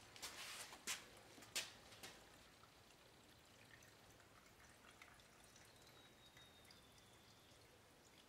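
Gasoline pouring from a plastic gas can into a small tiller's fuel tank: a few clicks and knocks of the can in the first two seconds, then a faint, steady trickle.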